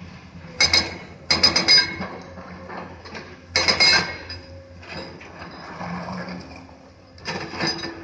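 Stone and steel clattering and clinking in four short bursts, with a ringing metallic edge, as Komatsu excavators work a pile of cut stone blocks. A steady low diesel hum from the excavator engines runs underneath.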